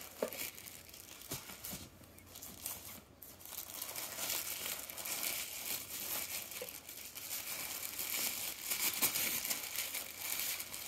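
Thin plastic wrapping crinkling and rustling as it is handled and pulled off by hand, sparse at first and busier from about four seconds in.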